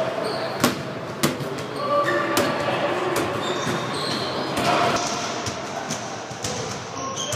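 Racquetball rally: sharp cracks of the ball struck by racquets and hitting the court walls, two loud hits about half a second apart in the first second and a half, then fainter hits.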